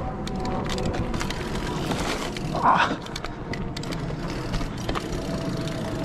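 Canyon Torque enduro mountain bike riding along a dirt forest singletrack: steady tyre rumble on the ground, with clicks and rattles from the bike. One short, louder sound stands out a little before halfway through.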